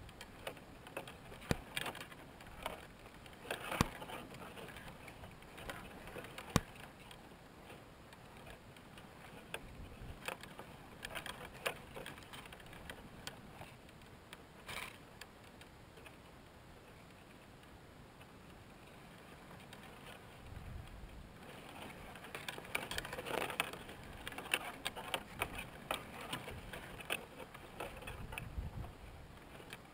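Irregular faint clicks, ticks and rustling of dry grass and plant stems close to the microphone, growing denser near the end as a Cape Rockjumper settles onto its grass nest.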